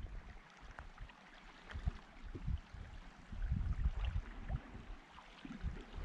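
Kayak being paddled on calm water: irregular low thumps and soft splashes, with small drips and clicks of water.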